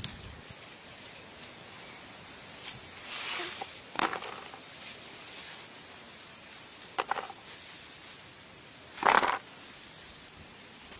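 Hands rustling through leaves and grass while picking small green fruits: a few short rustles, with a louder one near the end.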